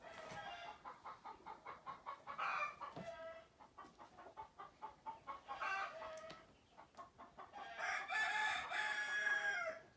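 Chickens clucking in a run of short calls, with a rooster crowing once near the end.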